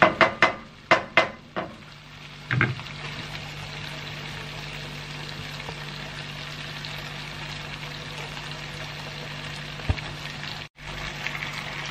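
A wooden spoon knocks and scrapes in a nonstick pan about six times in the first few seconds. Then the creamy beef-and-mushroom mixture sizzles steadily over a low hum.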